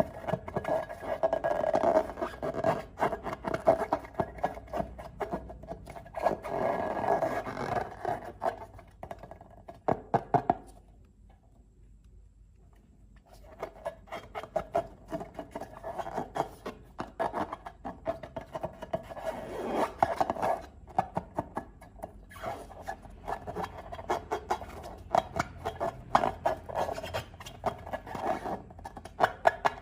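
Slime being worked by hand, a stretch of sticky clicking and crackling squishes, broken by a pause of about three seconds about a third of the way in.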